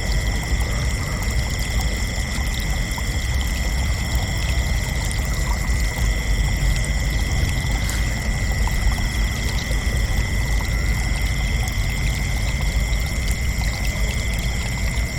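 Crickets trilling in a steady, unbroken chorus, with a constant low rushing noise beneath.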